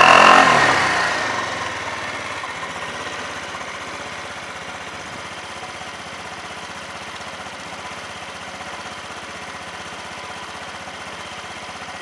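2008 Honda Lead (JF19) scooter's single-cylinder four-stroke engine breathing through a Moriwaki aftermarket exhaust: a last throttle blip dies away in the first second or so and the engine settles to a steady idle.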